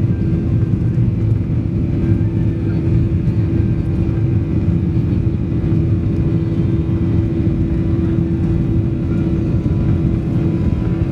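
Boeing 737-800's CFM56-7B jet engines at takeoff thrust, heard from inside the cabin during the takeoff roll: a steady, loud low drone with one held tone running through it.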